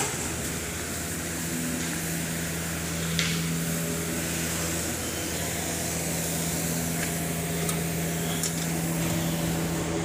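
Steady mechanical hum of a running motor, one constant low tone over a faint hiss, with a few faint clicks.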